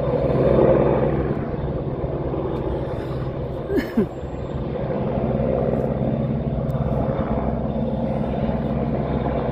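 AgustaWestland AW101 helicopter hovering: a steady drone of rotors and turbines with a fast low beat. A brief sharp sound with a falling pitch cuts in about four seconds in.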